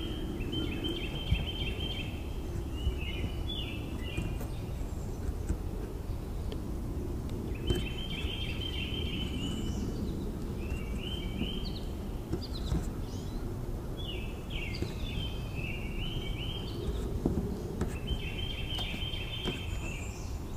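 A songbird sings bouts of quick, repeated chirping phrases, pausing between them, over steady outdoor background noise with a few faint clicks.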